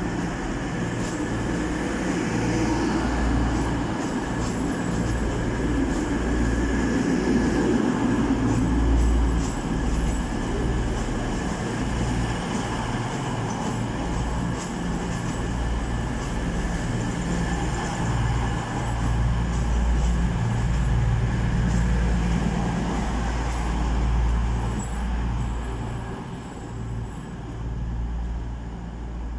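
East Midlands Railway Class 222 Meridian diesel multiple unit running slowly past into the platform: a steady rumble of its underfloor diesel engines and wheels. It gets quieter in the last few seconds as the train comes to a stand.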